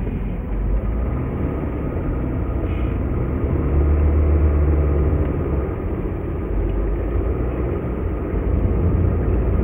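Steady low road and engine rumble of a car driving, heard from inside the cabin. It swells for a couple of seconds around the middle, as a minivan passes close alongside.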